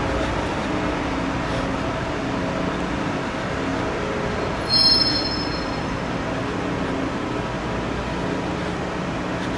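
Scheuchzer Grizzly 104 L rail-grinding train working the track, a steady grinding and machine noise. About five seconds in, a brief high-pitched squeal rises above it.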